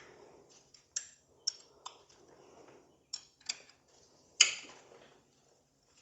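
Scattered sharp metallic clinks and taps of hand tools against motorcycle parts, about six separate strikes with the loudest about four and a half seconds in.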